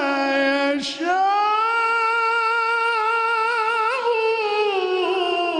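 A man's solo, unaccompanied Arabic devotional singing in praise of the Prophet. After a quick breath about a second in, he holds one long melismatic note, with a small wavering turn near the end before the pitch falls away.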